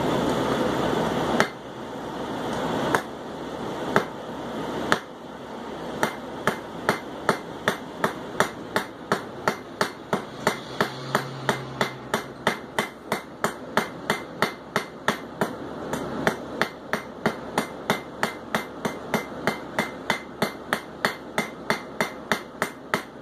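Blacksmith's hand hammer striking hot steel on an anvil, rounding a forged stem from octagon to round: a few single blows, then a steady run of about two to three ringing blows a second. A steady rushing noise stops about a second and a half in.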